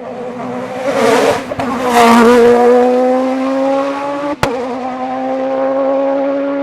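Race car engine at full throttle on a hillclimb, its note climbing steadily as it accelerates, with loud rasping surges in the first two seconds and a sharp break about four seconds in.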